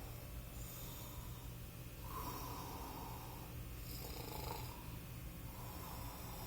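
Snoring in slow, noisy breaths: three snores, one about two seconds in, one around four seconds and one near the end, over a steady low hum.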